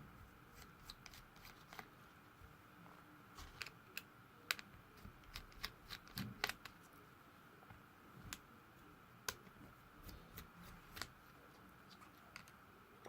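Scattered small clicks and taps of a small Phillips screwdriver and plastic phone parts being handled while an LG G4 is taken apart, coming unevenly and bunched a few seconds in, over a faint steady hum.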